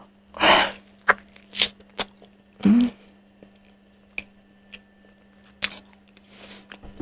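Biting into and chewing crispy fried chicken with the mouth open, the crust crunching in a loud bite about half a second in followed by scattered sharp crackles and smacks.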